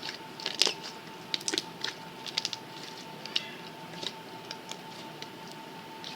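Slime being squeezed and pressed by hand, giving irregular sticky clicks and small pops that are thickest in the first couple of seconds and then thin out. A faint steady whine runs under it.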